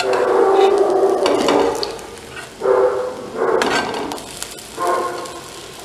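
A steel spatula scrapes along a seasoned iron kadhai as frying potato patties are flipped over in shallow oil. One long scrape is followed by three shorter ones, over a light sizzle of oil.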